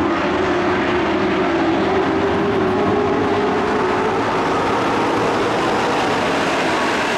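A pack of dirt-track race trucks' engines running at speed around the oval, a loud steady drone of several engines together.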